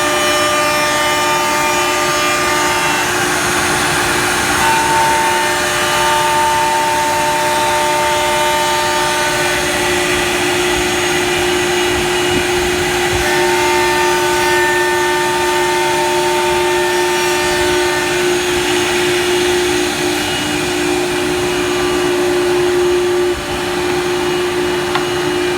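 1325-3T CNC router running: a steady whine from the machine over a loud, even rushing noise, with higher tones that come and go.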